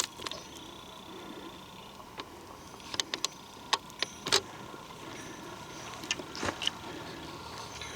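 Footsteps on the forest floor: irregular crunches and sharp twig snaps, clustered around three to four and a half seconds in and again around six to seven seconds.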